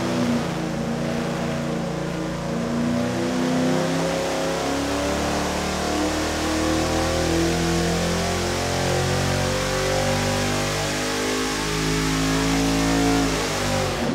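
GM LQ9 6.0-litre V8, carbureted on a single-plane intake with long-tube headers, running at wide-open throttle on an engine dyno during a power pull. The pitch climbs slowly as it pulls up through the rev range, then it drops off right at the end.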